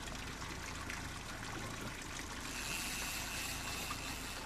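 Steady wash of sea water around a small open fishing boat. About halfway through, a faint high steady whine joins in.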